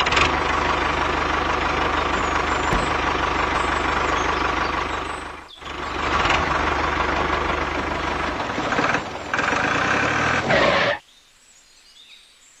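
Tractor engine running steadily with a low rhythmic chug. It dips for a moment about halfway through and cuts off near the end.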